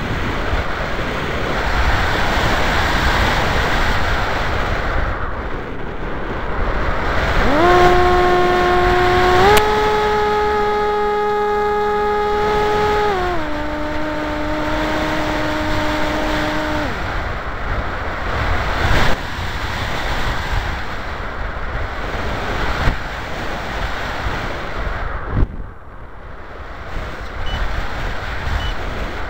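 Air rushing over an RC flying wing's onboard camera in flight, with a steady motor-and-propeller hum that comes in about eight seconds in, steps up in pitch, drops back lower and cuts off a little past halfway, leaving only the rush of air and a few sharp clicks.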